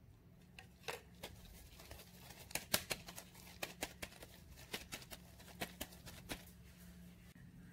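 Light, irregular clicks and taps of a plastic measuring spoon against a ceramic ramekin as cocoa powder is spooned in and the dish is tilted and turned to coat it, about a dozen sharp ticks.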